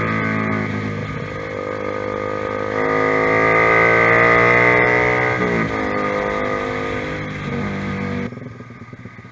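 Honda CBR150R single-cylinder engine running through an aftermarket ProLiner TR1-R exhaust, its note rising steadily under throttle. The pitch drops sharply about five and a half seconds in, then holds, and the sound falls away abruptly near the end.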